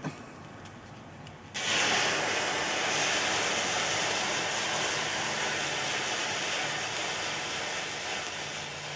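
Homemade thermite (iron oxide and aluminium powder) in a tin can catching about a second and a half in and burning with a loud, steady hiss that slowly weakens.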